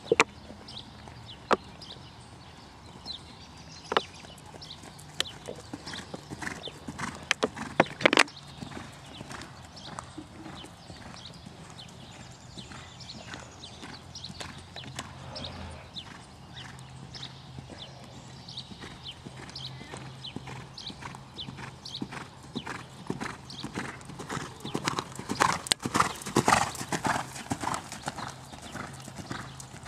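A horse's hooves beating on sand arena footing at a canter, a run of soft thuds and clicks that grows louder and denser near the end. A few sharp, louder clicks stand out in the first eight seconds.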